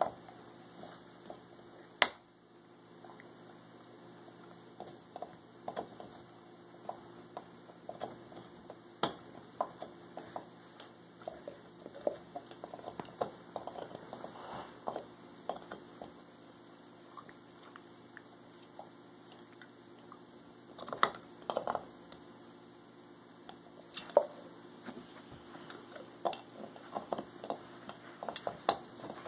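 A pit bull gnawing on a chew toy: irregular wet clicks, squishes and crunches that come in clusters, over a steady low hum. A single sharp knock about two seconds in.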